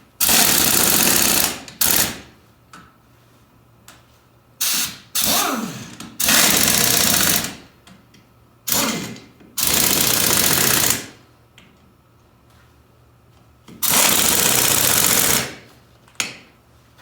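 Impact wrench running lug nuts onto an ATV wheel: about eight loud runs of hammering, each up to two seconds long, with short pauses between them, the motor winding down after one run about six seconds in.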